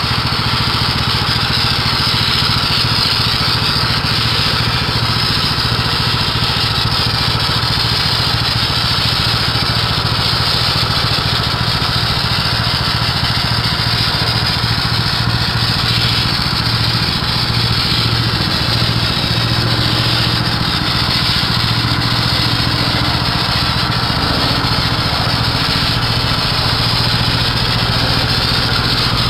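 Vehicle engine running steadily at an even pitch, with a constant hiss over the hum.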